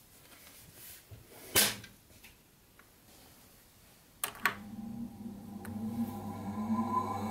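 A sharp knock about a second and a half in. About four seconds in, the click of a power switch, and the under-table clutch motor of an industrial sewing machine starts up, spinning up with a faint rising whine and settling into a steady hum.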